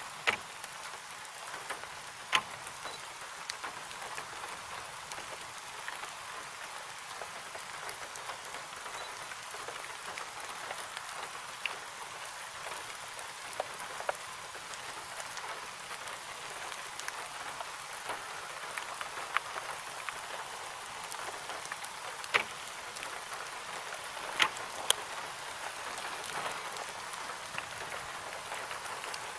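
Steady rain falling, with a handful of single drops striking close by as sharp ticks.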